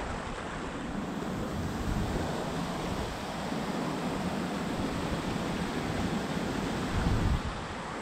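Steady rush of a mountain stream flowing over stones, with wind buffeting the microphone in low gusts that swell about seven seconds in.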